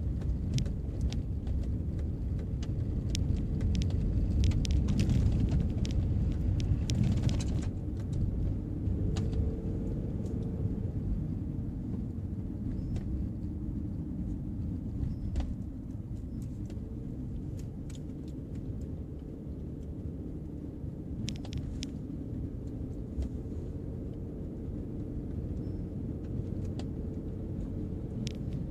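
Car driving, heard from inside the cabin: a steady low rumble of engine and tyres, with gravelly crackle and small stone clicks for the first seven seconds or so on the dirt road, then a smoother rumble once on pavement.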